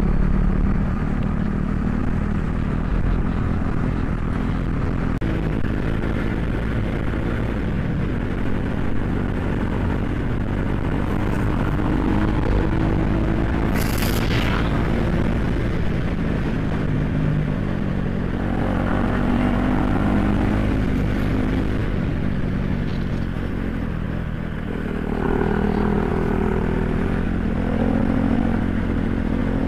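KTM RC 390 single-cylinder engine running as the bike rides along, heard from the rider's position with wind and road noise. The engine note holds fairly steady, then shifts in pitch several times in the second half as the throttle changes. There is a short hiss about halfway through.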